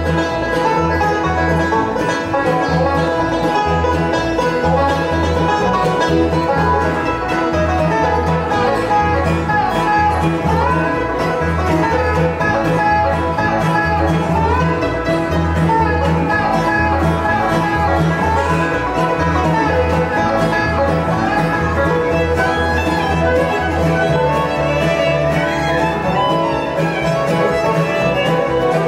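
Bluegrass band playing an instrumental passage: bowed fiddle, five-string resonator banjo, acoustic guitar and mandolin over an upright bass keeping a steady beat.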